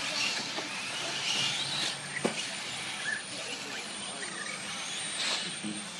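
Electric radio-controlled short course trucks racing on the track, their motors whining, with one quick rising rev about two seconds in.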